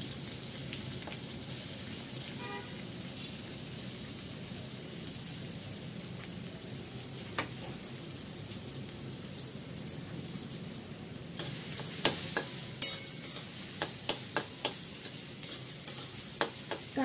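Chopped onions sizzling in hot oil in a steel kadhai. About two-thirds of the way through, a spoon starts stirring them, with sharp clicks and scrapes against the pan, and the sizzle grows louder.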